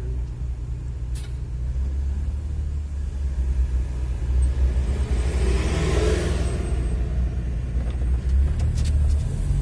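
Car engine and road rumble heard from inside a moving car, steady and low. About five to seven seconds in, a louder rush of noise swells and fades.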